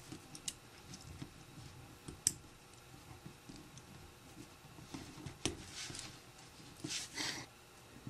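Plastic Lego pieces clicking and scraping as small wheels are pressed onto a train chassis by hand: a few sharp clicks, the loudest a little over two seconds in, with soft handling noise and a brief rustle near the end.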